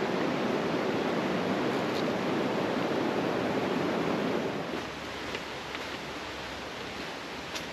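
Rushing water of the Ellis River running over boulders, a steady noise that falls off sharply about four and a half seconds in, leaving a quieter background with a few faint ticks near the end.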